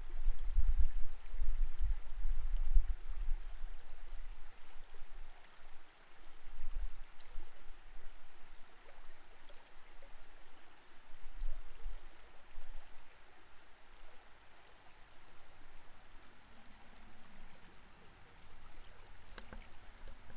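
Creek water flowing, heard from underwater through a camera's waterproof housing: a steady muffled hiss of moving water, with low rumbling thumps against the housing that are heaviest in the first few seconds and then die down.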